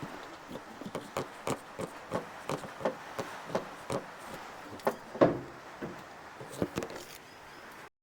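Ratchet spanner clicking in a steady run of about three clicks a second while bolts are worked loose in an engine bay, then a louder metallic knock about five seconds in and a few scattered clicks.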